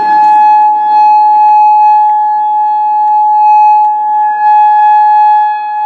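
Outdoor warning siren holding a steady, loud tone at one unchanging pitch, the steady alert used for tornado warnings.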